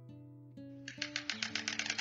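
Background music of held notes that change in steps. About a second in, a white stork starts clattering its bill: a fast, even run of sharp clicks.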